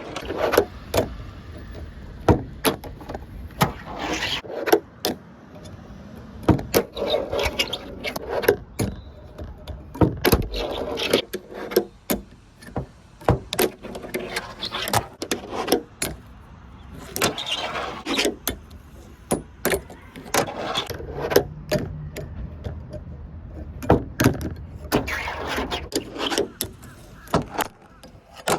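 Fingerboard with hard urethane wheels rolling over ramps in runs of a second or two, broken by many sharp clacks of the deck popping, landing and hitting obstacles.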